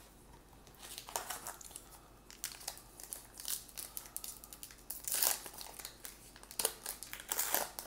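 Foil wrapper of a baseball card pack crinkling and tearing as it is pulled from the box and ripped open by hand: a string of irregular rustles with several louder crackles.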